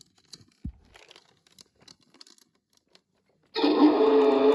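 Faint plastic clicks and handling of a toy fire truck's ramp compartment. About three and a half seconds in, the Hess fire truck toy's electronic sound effect starts suddenly and loud from its small speaker, a tinny tone with slowly gliding pitch.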